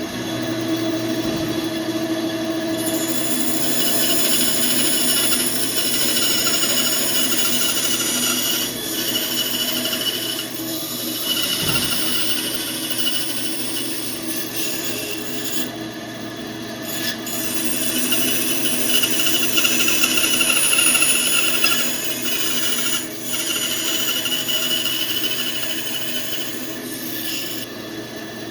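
Band saw running and cutting wood: a steady motor hum and high tone from the saw, with the rasp of the blade in the wood swelling and easing as the cuts go.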